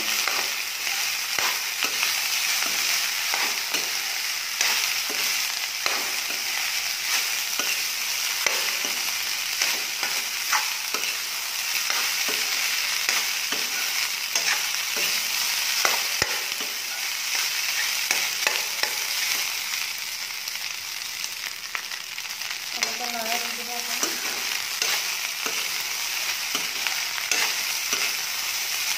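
Rice being stir-fried with egg in a metal kadai: a steady sizzle, with the metal spatula scraping and clacking against the pan over and over.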